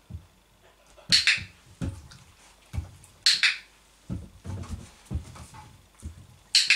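A dog-training clicker clicking three times, about two seconds apart, marking the dog resting its chin on the chair seat. Soft knocks and shuffling come in between.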